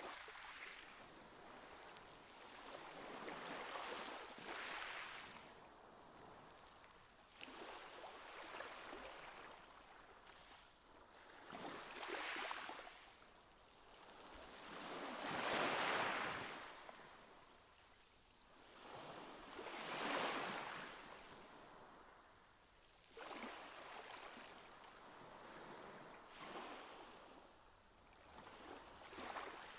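Pool water washing and lapping, rising and falling in slow swells every few seconds.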